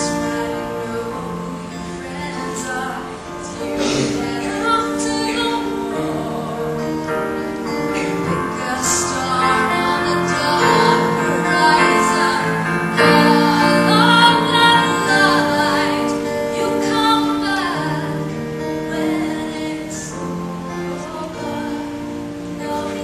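A woman singing a slow, tender song with instrumental accompaniment.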